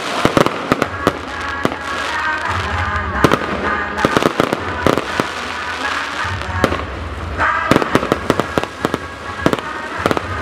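Fireworks bursting: many sharp bangs and pops come in quick, irregular succession, some louder than others.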